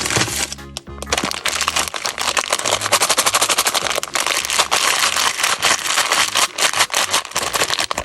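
Dense, rapid crackling and clicking of candy and its packaging being handled, over background music that is plain in the first two seconds.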